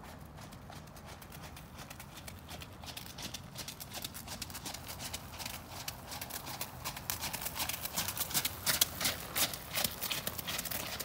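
Hoofbeats of a ridden horse on wet gravel arena footing, a quick run of crunching steps that grows steadily louder as the horse comes close, loudest near the end.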